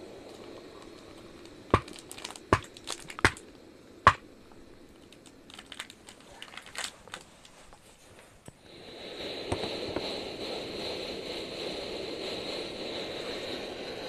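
Hot water poured from a camping kettle into mugs, with four sharp clinks in the first few seconds and a few lighter ticks after them. About eight and a half seconds in, a steady rushing noise starts and keeps going.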